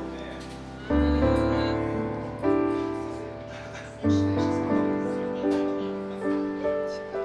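Slow, gentle piano music, with single notes and chords struck every second or so, each ringing and fading.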